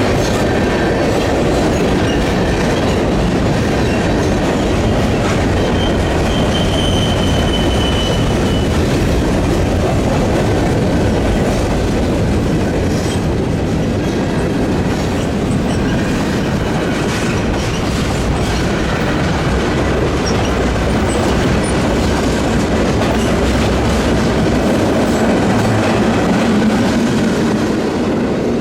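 Freight train cars rolling past, their steel wheels clattering steadily over the rails, with a brief high wheel squeal about six seconds in.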